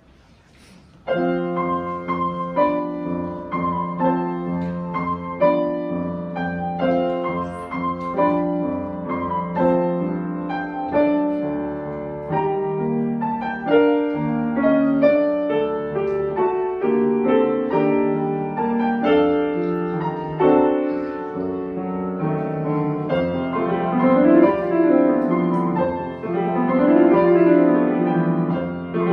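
A grand piano played by two players side by side, starting about a second in with a steady stream of chords and melody. Near the end, quick runs sweep up and down three times in the middle of the keyboard.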